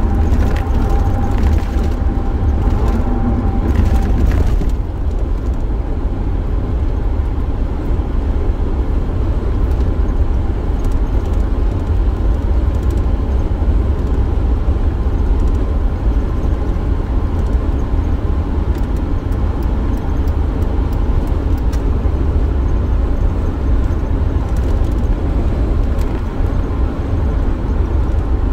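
Steady low road and engine rumble inside a van's cabin while it is driven, with a steady higher hum that stops about four seconds in.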